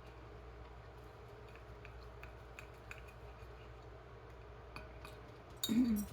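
Faint, scattered clicks and taps of cutlery on a plate during a meal, over a low steady room hum, with one brief louder sound near the end.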